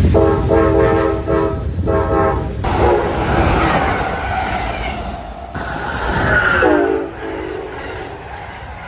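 Train horn sounding two long blasts. Then a passing train's rumble and rail noise, with two shorter horn soundings over it.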